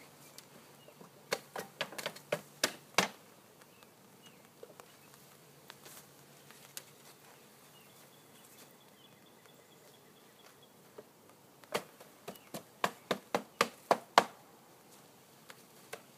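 Sharp knocks in two rapid series, about half a dozen near the start and about ten more around three-quarters through: a wooden bee package being rapped against the top bar hive to shake the bees out. A faint buzz of honeybees lies under it.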